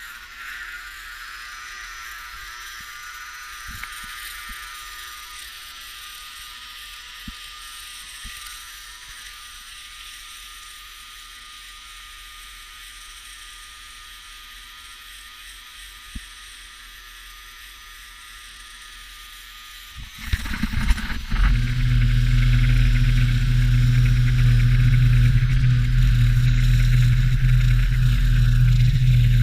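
An engine starts about two-thirds of the way through with a brief burst of clatter, then runs loud and steady. Before that there is only a faint hiss and a few light clicks.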